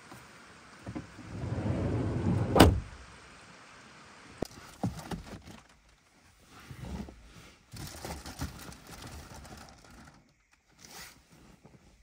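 Van side door pulled shut: a low rumble builds for about a second, then the door closes with one loud slam about two and a half seconds in. After that come scattered light clicks and rustling as someone moves around inside the closed van.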